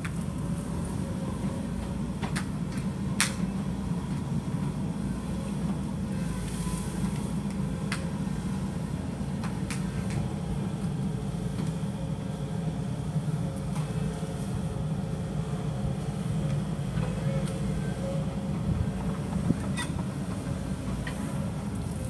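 Kobelco hydraulic excavator's diesel engine running steadily under load while clearing brush and earth, with a few sharp knocks and clanks from the machine working.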